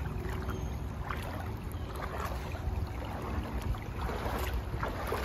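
Creek water sloshing and splashing irregularly around the legs of someone wading through a shallow, stony stream, over a steady low rumble.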